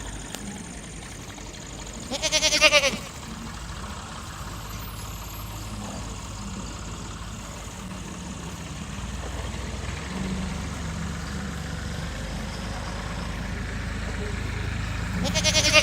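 Goat bleating: one loud, wavering bleat about two seconds in and another starting near the end, over a steady low hum.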